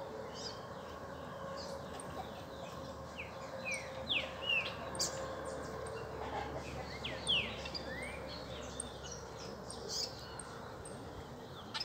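Small songbirds, saffron finches among them, chirping: many short sweeping calls, several close together, over a faint steady hum.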